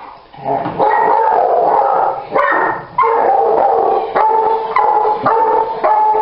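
Dog barking and howling in a string of drawn-out calls, one after another, while it waits for an automatic ball launcher to fire.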